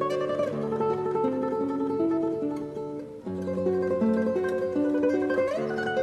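Solo classical guitar playing a tremolo melody of quickly repeated treble notes over plucked bass notes. The music dips briefly just after three seconds before a new chord, and a short rising slide comes near the end.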